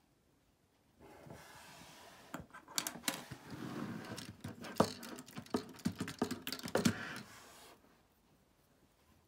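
Plastic Lego pieces of a Republic Fighter Tank set clicking and rattling as they are handled on a tabletop. The sound is a run of sharp clicks over light rustling, starting about a second in and stopping near the end, with the loudest clicks about five and seven seconds in.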